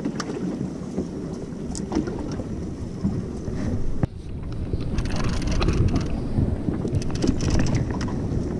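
Wind rumbling on the microphone over water washing against a boat's hull, with scattered knocks and clicks. The rumble grows stronger about halfway through.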